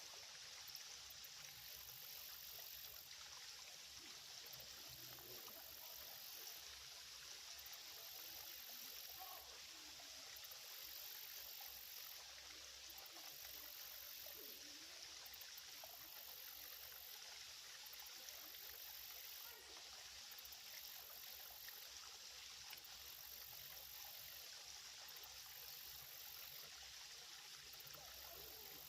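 Faint, steady trickling of a small, shallow creek's flowing water.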